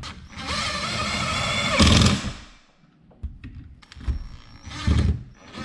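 Cordless drill running in two bursts: one of about two seconds that spins up and ends in a brief heavier grind, then a shorter one about four seconds in.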